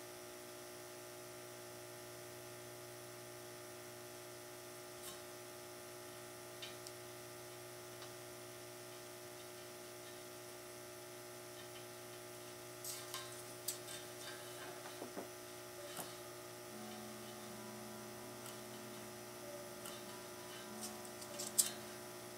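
Steady low electrical hum, with scattered light metallic clicks and taps from about halfway on as small steel rivet heads are handled and set into the holes of a steel plate; the loudest click comes near the end.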